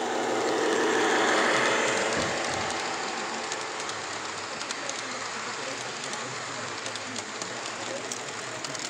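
Gauge 1 model Class 66 diesel locomotive passing close by, loudest about a second and a half in, followed by a long train of model freight wagons rolling past with a run of light clicks from the wheels on the track.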